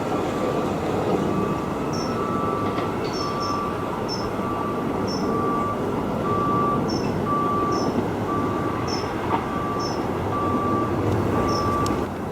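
Train running with a steady, dense rumble, overlaid by a short high beep repeating about every three quarters of a second and scattered high chirps. The rumble drops away at the very end.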